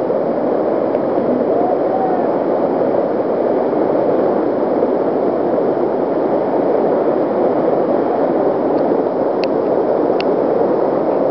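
Steady, loud rush of a big whitewater rapid, with the river's water pouring over and around boulders.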